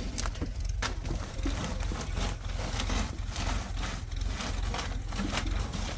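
Wood crackling and snapping in irregular sharp clicks, over a steady low rumble.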